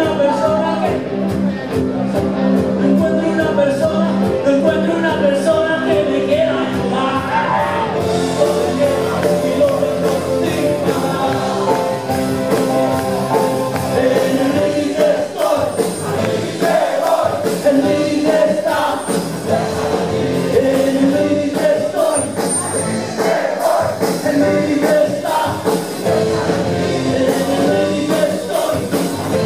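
Live rock band playing a song with singing. The sound gets brighter and fuller about eight seconds in.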